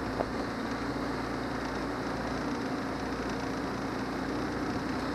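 Boat motor running steadily with a constant hum, over a haze of water and wind noise.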